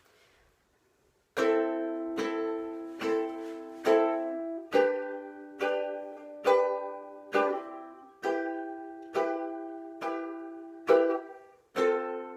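Acoustic string instrument strummed in slow, steady chords, about one strum a second, starting about a second and a half in, each chord ringing and fading before the next: the instrumental intro of a song accompaniment.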